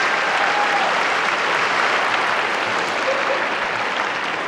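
Audience applauding, the clapping easing off slightly toward the end.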